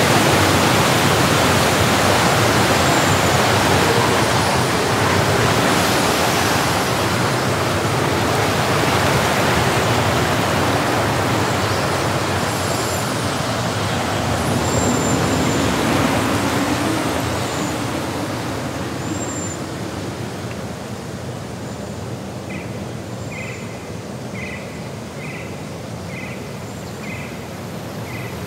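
Steady rushing of a mountain stream cascade, which falls away about two-thirds of the way through to a softer outdoor hiss. Near the end a small chirp repeats about twice a second, with a few brief high chirps over the top.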